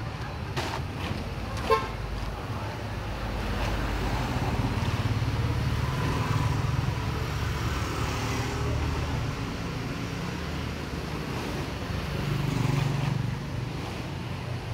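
Street traffic going past, a steady low rumble that swells a couple of times, with one short beep of a vehicle horn near the start.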